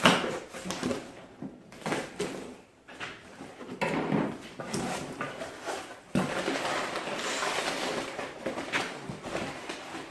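A cardboard shipping box being opened by hand and its packing handled: irregular knocks and rustling, with a denser, steadier stretch of rustling in the second half.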